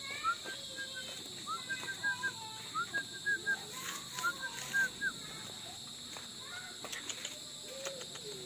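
Night-time crickets trilling steadily. Over them, through the first five seconds, come quick groups of short high chirps from an animal.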